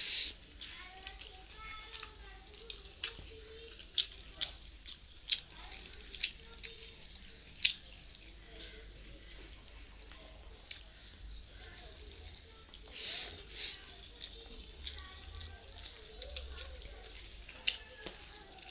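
Close-up wet chewing and lip smacking of a person eating rice and bottle gourd by hand: many sharp, irregular mouth clicks, with a longer louder burst near the start and another about two-thirds of the way through.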